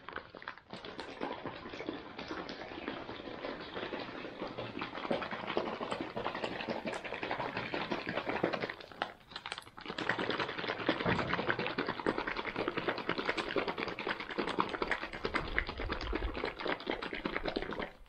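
Plastic smoothie pouch of water and freeze-dried fruit powder being shaken hard, a fast, dense rattling and sloshing that stops briefly about nine seconds in. It is being shaken to break up lumps of powder that will not dissolve.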